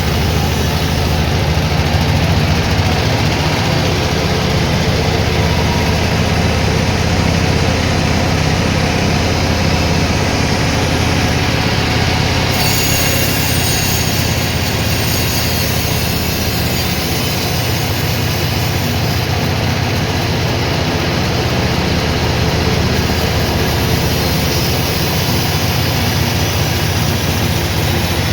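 Sawmill machinery running steadily, with a heavy low drone; a higher hiss joins for several seconds near the middle.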